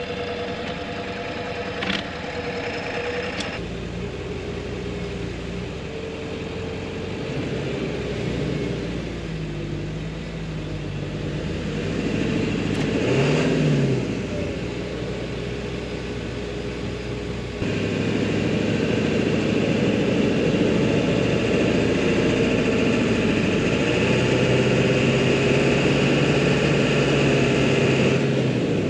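Engine of a compact construction machine running, with the revs rising briefly about halfway through and running louder and steadier for the latter part.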